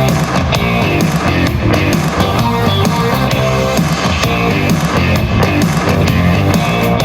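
Music with a steady beat and strong bass, an instrumental stretch without vocals, played back through a Tribit StormBox Blast Bluetooth party speaker as an audio sample.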